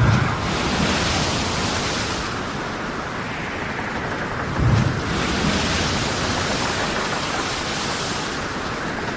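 Storm at sea: a steady rush of wind and water, surging twice, once at the start and again about halfway, each time with a low thud and a couple of seconds of louder hiss as a wave breaks.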